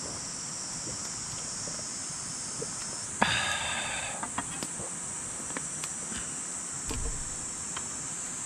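Summer insects chirring steadily in a high, even drone. About three seconds in, a louder buzz lasts under a second, and small clicks are scattered throughout.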